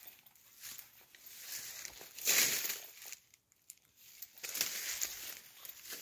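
Rustling and crackling of dry leaves and brush being disturbed, in irregular bursts, loudest about two and a half seconds in.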